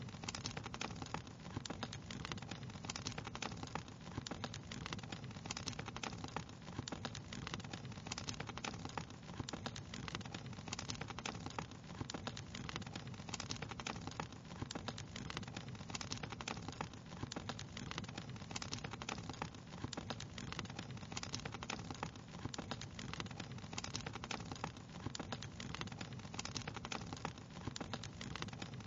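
Fireplace fire crackling: a constant, irregular stream of small pops and snaps over a steady low rumble.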